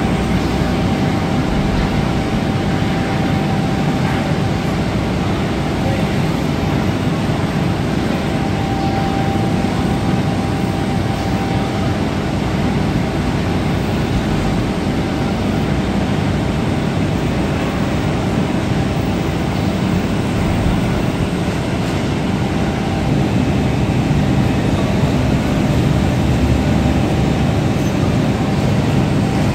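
Steady factory-floor machinery noise, an even rumble and hum with a faint held tone in it.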